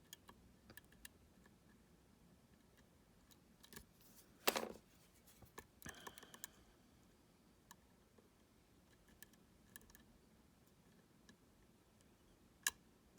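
Lock pick and tension tool working the pins of a U-Shin Showa NX lock: faint scattered metallic clicks, a brief louder scrape about four and a half seconds in, and a sharp click near the end.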